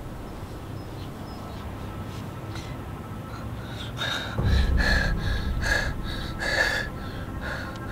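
Low steady outdoor rumble, then from about four seconds in a boy breathing hard in quick gasps, about two a second.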